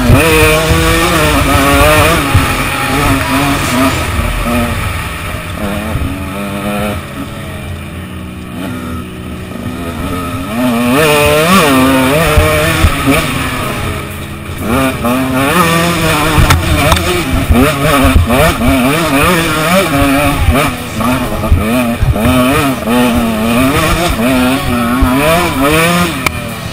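Two-stroke 125 cc enduro motorcycle engine (KTM 125 EXC) revving up and down over and over as the rider accelerates and shifts on a dirt trail. The revs drop off for a few seconds about a fifth of the way in, then climb hard again.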